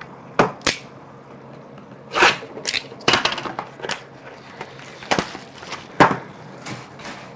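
A cardboard trading-card box being handled and opened by hand: about eight separate sharp snaps, scrapes and rustles.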